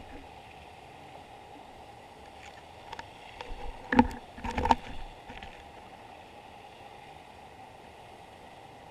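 A few short knocks and clicks, loudest about four seconds in with a quick cluster just after, over a steady faint hum and hiss.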